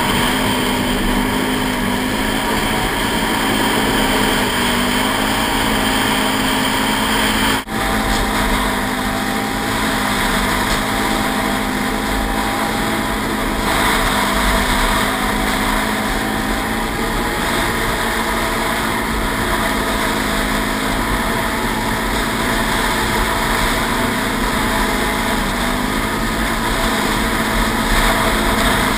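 Can-Am Renegade 800 XXC ATV's V-twin engine running under way at a fairly steady speed, its pitch rising and falling slightly with the throttle. The sound breaks off for an instant about eight seconds in.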